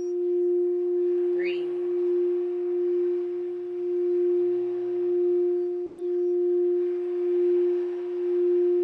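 Singing bowl sustaining one steady, pure hum, its loudness swelling and fading slowly about every second and a half.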